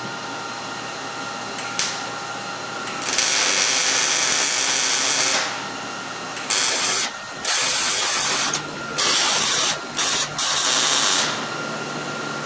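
Welder laying short weld beads on a car's exhaust pipe, joining a sleeve pipe in place of a rotted exhaust flange: a steady crackling hiss, one long run of about two seconds about three seconds in, then five shorter bursts.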